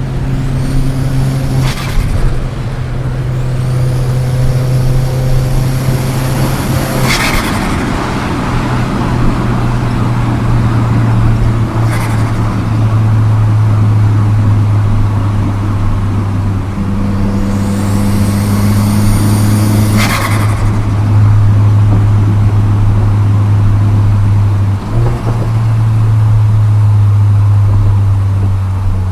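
Volkswagen Golf GTI Mk4's 1.8 20-valve turbo four-cylinder pulling hard at speed, its engine note stepping between gears. The turbo whistle rises and is cut off by short bursts of turbo flutter as the throttle closes, the loudest about seven seconds in and again near twenty seconds.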